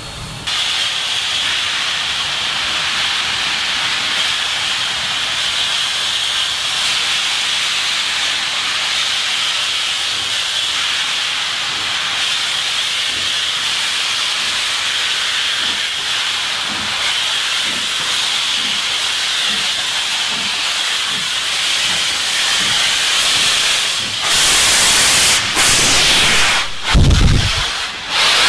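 Southern Pacific 4449, a GS-4 4-8-4 steam locomotive, venting steam in a loud, steady hiss. About 24 seconds in the sound grows louder and fuller as the locomotive comes alongside and its steam engulfs the microphone, with a brief low rumble near the end.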